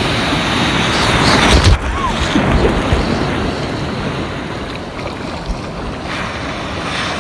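Ocean surf: waves breaking and foamy water rushing close by. The rush swells and drops off abruptly just under two seconds in.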